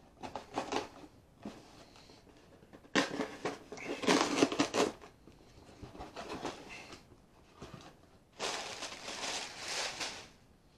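A cardboard shipping box being opened: a knife slitting the packing tape, the flaps pulled back, and the plastic air-pillow packing crinkling as it is pulled out. This comes in several bursts of scraping and rustling, with the longest crinkle near the end.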